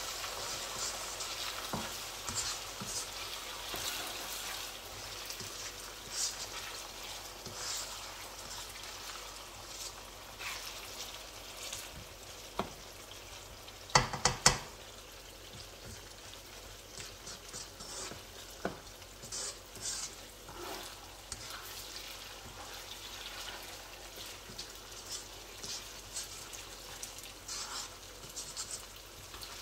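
Oil sizzling in a karahi as a masala of browned onions, garlic, fresh tomato and green chillies fries, with a slotted spoon stirring and scraping through it. About halfway through, the spoon gives a quick cluster of three sharp knocks against the pan.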